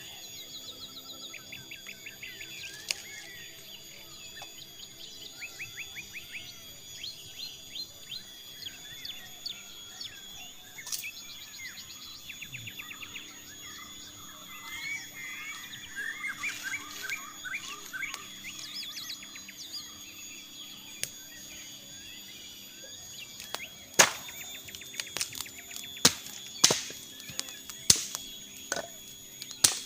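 Forest ambience: birds calling in short, rapid trilled phrases over a steady high insect drone. In the last few seconds a run of sharp knocks or cracks, the loudest sounds, cuts through.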